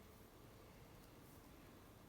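Near silence: faint steady room tone with a light hiss.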